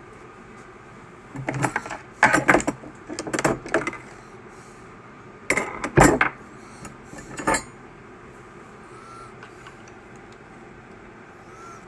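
Small tools and hard plastic parts clattering as they are handled on a work surface, in two bouts of clicks and knocks: one starting about a second and a half in, another just past the middle.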